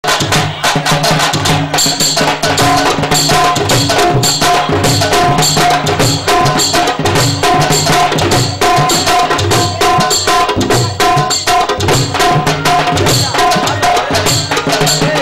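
Fast percussion-led band music: a quick, steady drum beat with tabla-like hand drums and a short melodic phrase repeated over and over.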